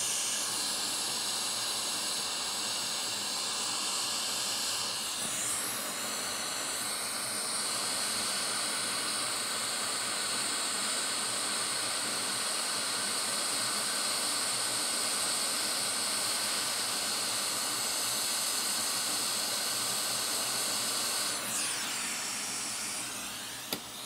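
Hot air rework station blowing a steady hiss of air onto a logic board while flux boils around capacitors being soldered on. The airflow tapers off near the end.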